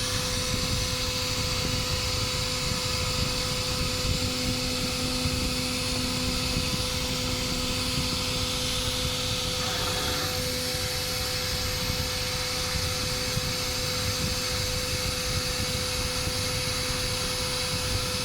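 CNC router running steadily: a constant machine noise with a fixed whine held throughout, its tone shifting slightly about ten seconds in.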